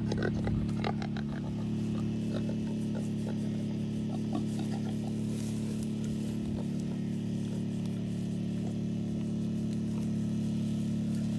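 A steady low mechanical hum, like a motor or engine running without change, with faint scattered ticks and rustles over it.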